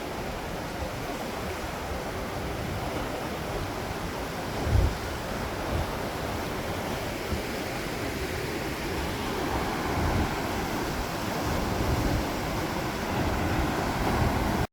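Steady rushing roar of Takakkaw Falls, a large waterfall, with wind gusting on the microphone in low rumbles, the strongest about five seconds in.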